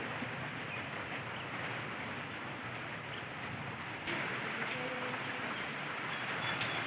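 Steady rain falling, an even hiss that gets a little louder about four seconds in.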